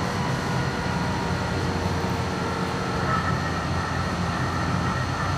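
Electric tram running along a city street, heard from inside the car: a steady low rumble of wheels on rails and running gear, with a few faint steady tones above it.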